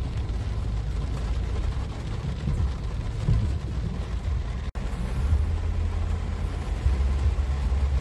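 A car driving on rain-soaked, flooded streets, heard from inside the cabin as a steady low rumble. The sound drops out for an instant about halfway through.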